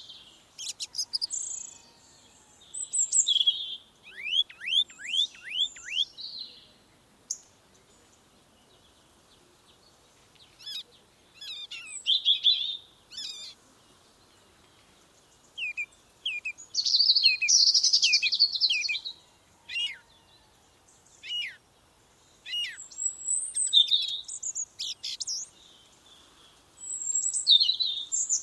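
Songbirds singing in separate phrases of high, quick chirps and trills, with short quiet gaps between them. One phrase is a run of about eight fast downward-sweeping notes, and a dense burst of song comes about halfway through.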